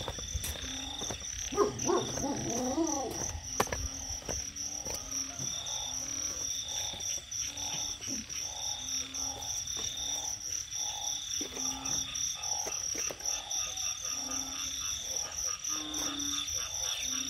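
A chorus of frogs calling, short low croaks repeating about once a second, over a steady high insect trill. There are two sharp clicks in the first few seconds.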